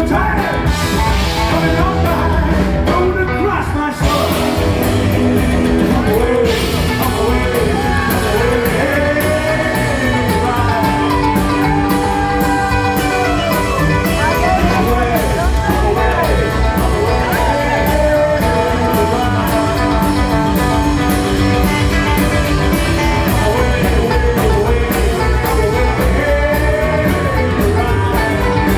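Live rockabilly band playing a rock and roll number: electric guitar over a steady drum beat, with a bent, gliding melody line through the middle.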